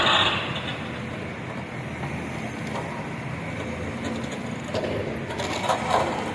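CASE CX220C LC excavator's diesel engine running steadily, with a few louder scrapes or knocks about five to six seconds in.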